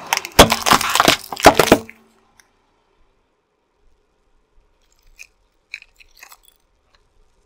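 Two small wooden chest-shaped boxes cracking and splintering under a car tyre: a quick run of loud crunches and snaps lasting about a second and a half. Several seconds later come a few light clicks as a hand handles the broken pieces and spilled coloured balls.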